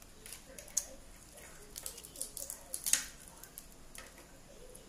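Boiled blue crab shell cracking as it is broken apart and picked by hand: an irregular run of sharp clicks and crackles, the loudest about three seconds in.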